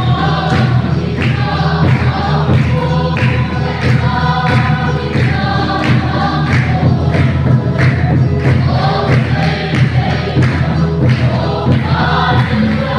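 A group singing a gospel hymn together, with a steady drum beat under the voices.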